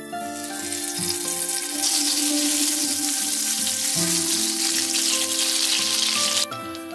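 Butter sizzling as it melts in hot oil in a nonstick pan. The sizzle builds over the first couple of seconds, holds steady, and cuts off abruptly near the end.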